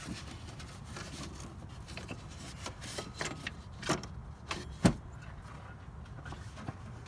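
Old serpentine belt being pulled out of the engine bay from underneath the car, its tension released: scattered rubbing, clicks and light knocks, with a sharper knock about five seconds in.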